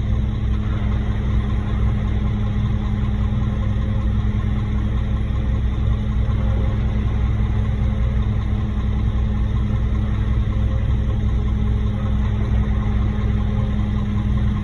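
Diesel engine of a concrete truck idling steadily.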